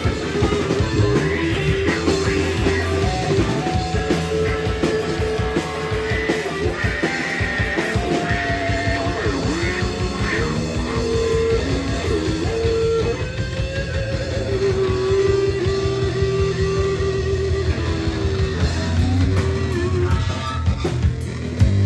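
Rock band playing: electric guitar carrying bending melodic lines over bass and drums.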